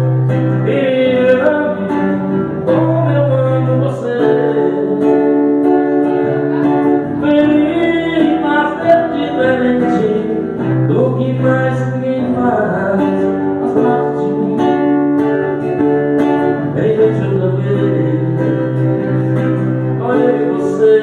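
Man singing while strumming an acoustic guitar, his voice amplified through a microphone, with held low notes under the vocal line.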